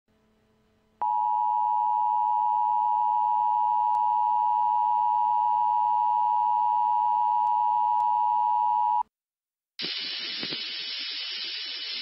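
Emergency Alert System attention tone: one steady, piercing tone starting about a second in, held for about eight seconds and cutting off sharply. After a short gap, a steady radio static hiss follows.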